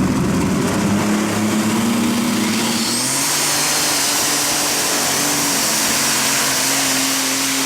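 Heavy Modified pulling tractor's engines running flat out during a pull. The engine note shifts about three seconds in as a high whine rises and then holds.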